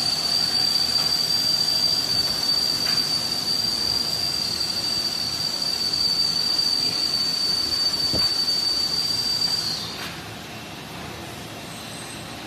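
High-pitched steady whine from the PUR wrapping machine line, rising in pitch as it starts, holding one pitch for about ten seconds, then dropping and cutting off, with a faint click about eight seconds in.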